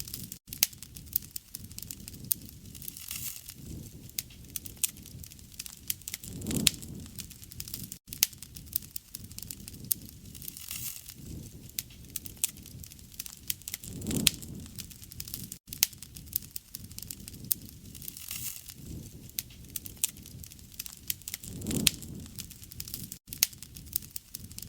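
Wood fire crackling and popping, with dense sharp snaps over a low flame rumble that swells about every seven and a half seconds. It is a short recording looped, with a brief dropout at each join.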